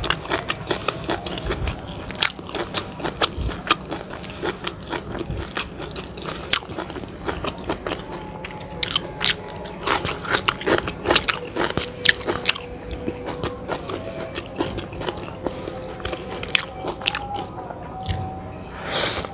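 Close-miked eating of chicken noodles in balado chili sauce: a steady run of quick chewing and mouth clicks, with a louder, longer noisy sound near the end.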